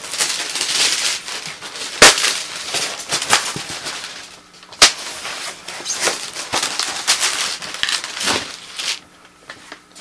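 Plastic packaging rustling and crinkling as a spring-powered airsoft shotgun is unwrapped and handled, with a few sharp clicks and knocks of the plastic gun, one about two seconds in, one near the middle and one near the end.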